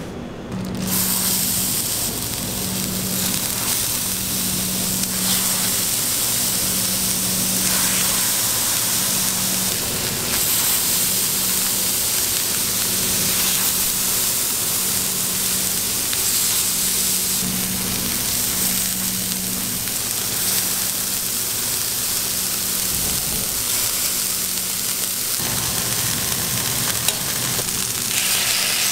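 Burger buns and balls of raw ground beef sizzling steadily on a hot flat-top griddle, the sizzle starting about a second in.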